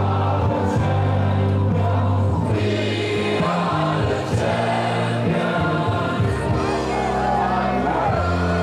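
Music with held bass notes, and a large crowd of football fans singing along.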